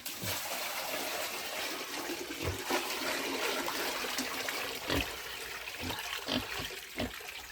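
Water rushing out steadily, poured or sprayed for the pigs, with a couple of knocks in the second half.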